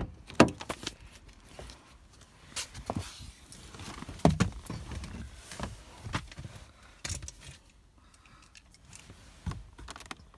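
Getting into a BMW car: sharp clicks and a clunk from the door handle at the start, then scattered light knocks, clicks and rustling from handling inside the cabin.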